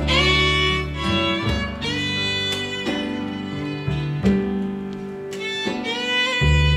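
Instrumental music from a small ensemble: a melody of separate notes over held low bass notes.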